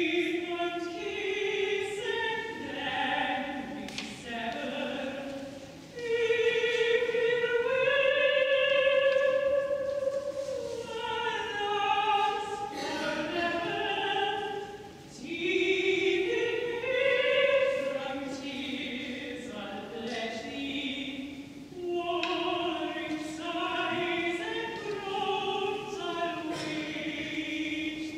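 A woman singing solo in a classical, operatic style: long held notes in phrases, with short breaks between them.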